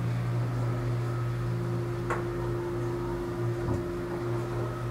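Residential elevator running with a steady motor hum as the car travels between floors, with two faint clicks along the way. The hum's higher tone cuts off near the end as the car stops at the landing.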